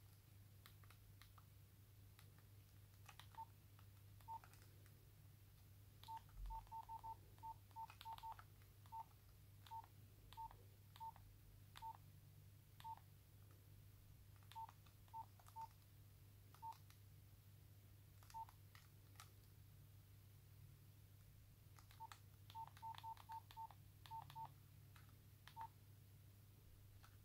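Nokia 3410 keypad tones: faint, short single-pitch beeps, one for each key press, coming at irregular intervals as the menu keys are pressed, with two quick runs of rapid presses. Faint clicks of the rubber keys go with them.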